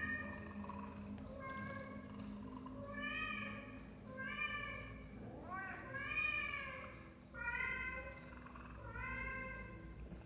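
Domestic cat meowing repeatedly, about seven meows roughly a second or so apart, each call rising then falling in pitch.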